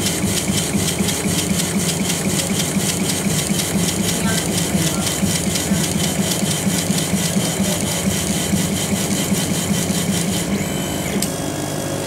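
Laser engraving machine's head shuttling back and forth over MDF in raster engraving: a fast, even rhythm of strokes, several a second, over a steady machine hum. The rhythm stops shortly before the end, leaving the steady hum as the machine changes over to cutting.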